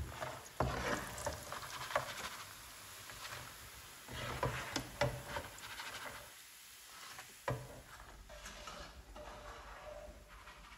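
Kitchen handling noises: a slotted skimmer scraping and tapping in a pan of hot frying oil, with rustles of paper towel as fried dough balls are set to drain. Faint sizzling of the oil runs underneath, with irregular clicks and scrapes rising and falling.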